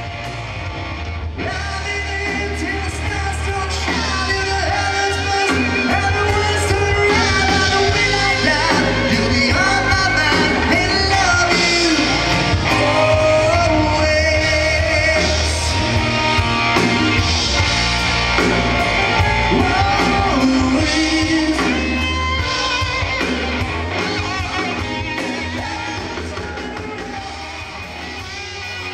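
Live rock band playing: a lead singer's voice over electric guitars, bass and drums. The music swells over the first several seconds and fades down near the end.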